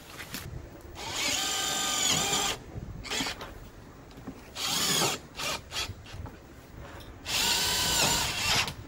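Cordless drill running in three bursts, two long ones of about a second and a half with a short one between, working into fiber-cement siding trim being fixed around a window frame.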